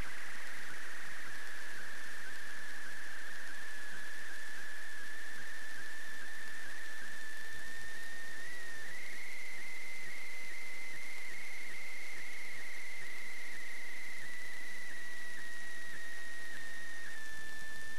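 Steady high-pitched electronic whine over a constant hiss on the sewer inspection camera's audio. The tone drifts slowly in pitch and steps up slightly about eight and a half seconds in.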